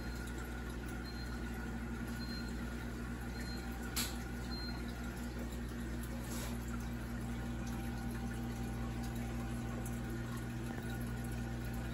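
Aquarium sponge filters bubbling steadily as air streams up their lift tubes, over a steady low hum, with a single sharp click about four seconds in.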